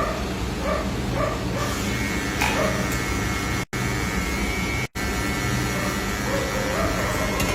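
Electric hair clippers buzzing steadily. Short repeated yelping sounds come over the buzz, and two brief dropouts break it.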